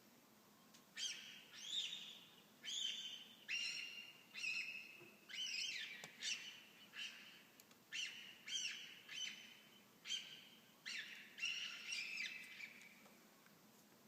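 An unidentified animal giving a run of about sixteen short, harsh, high-pitched calls, coming about one and a half a second, each starting sharply and dropping slightly in pitch.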